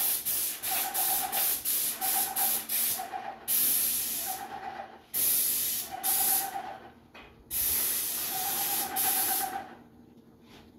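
Paint spray gun on an extension wand hissing as it sprays white paint onto a soffit, in quick short bursts at first, then longer sprays of up to about two seconds, stopping near the end.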